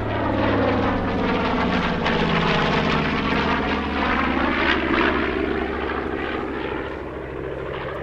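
North American B-25 Mitchell's two Wright R-2600 radial piston engines droning as the bomber makes a low flyby, loudest about five seconds in and easing off as it passes.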